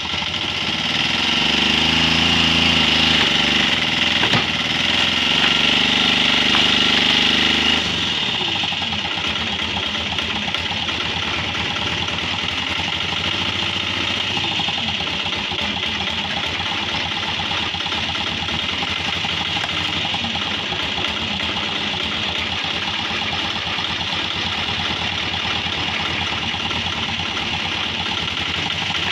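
Engine-driven hydraulic log splitter running while its steel wedge is forced down through a large log. A loud, steady running note with a high whine over it drops suddenly, about eight seconds in, to a quieter steady run.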